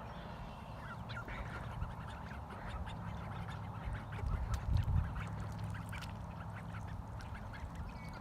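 Call ducks quacking, short calls scattered throughout, with a brief low rumble about halfway through.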